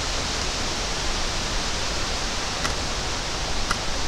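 Steady rushing wind noise, strong on the microphone, with two faint clicks near the end as the shotgun is handled.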